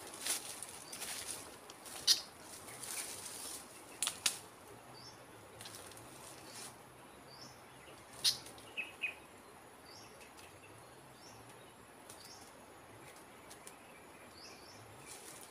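A bird caught in a pole-mounted trap flapping and knocking against it in short bursts over the first few seconds, then a sharp knock with a couple of short chirps about eight seconds in as the trap is handled. Small high chirps recur throughout.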